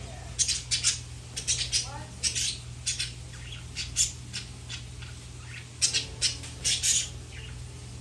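Conure squawking: a string of short, sharp, shrill calls in irregular clusters.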